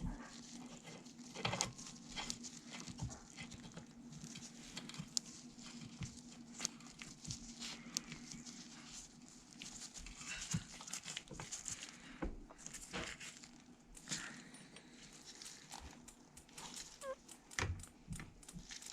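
Faint, scattered clicks and taps of a bicycle pedal being threaded into the crank arm and tightened with a tool, over a low steady hum.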